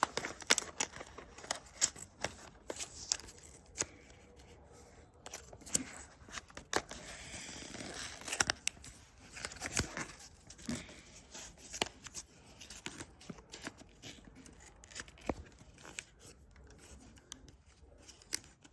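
Packaging of a blind-box pen being worked open by hand: scattered sharp clicks, snips and crackles, with a longer tearing rasp about halfway through.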